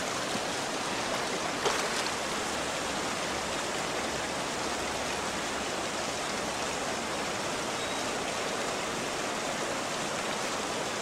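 Steady rushing of river current.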